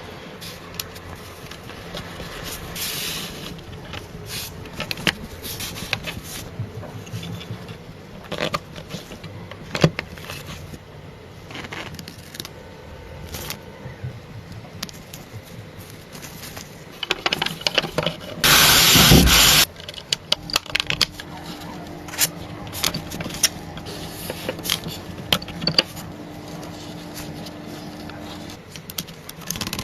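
Scraping and rubbing from hand work on car parts, with scattered clicks and knocks. About two-thirds of the way through comes a loud rush of noise lasting about a second, and a faint steady hum runs through the later part.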